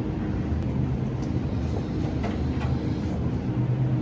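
Steady low hum and rumble of a store's refrigerated freezer aisle, with a few faint ticks.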